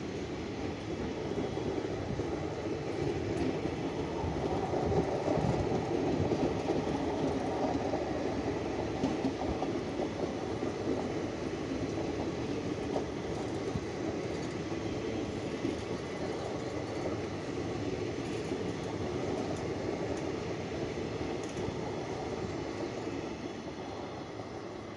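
Indian Railways passenger coaches rolling past, a steady rumble and clatter of wheels on the rails. It is loudest a few seconds in and fades over the last few seconds as the train draws away.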